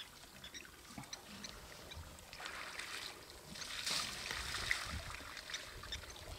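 Water sloshing and splashing as an African elephant bull wades in a shallow mud wallow and swings its trunk through the water, with a louder splash about four seconds in.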